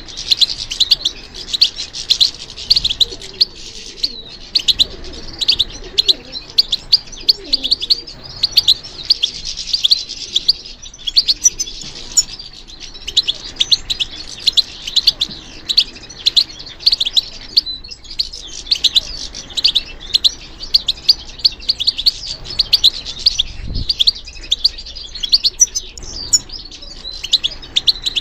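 European goldfinch singing: a fast, continuous twittering of rapid high chirps and trills, with brief breaks every few seconds.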